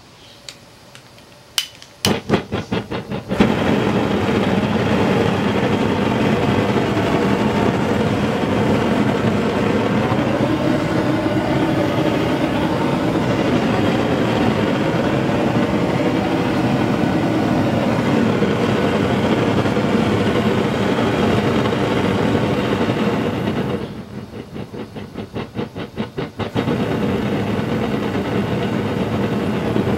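Ron Reil style propane forge burner, fed at about 3 PSI, lit after a few clicks. It sputters in rapid pulses for about a second, then burns with a loud, steady rushing. About 24 seconds in the flame goes quieter and flutters for a couple of seconds before coming back to full.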